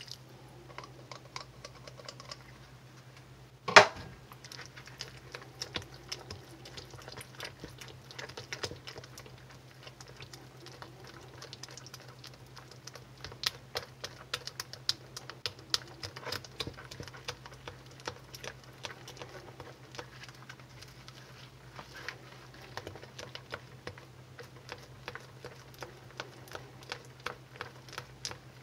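Silicone spatula beating soft shave soap paste in a plastic bowl: quick, irregular clicks and taps as it scrapes and knocks the bowl, with one sharp, loud knock about four seconds in. A steady low hum lies underneath.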